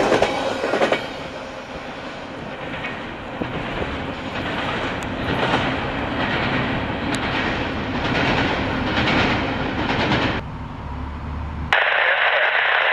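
A train rolling by on the rails, its wheels clacking over the track with repeated clicks. Near the end it cuts suddenly to a voice over a radio.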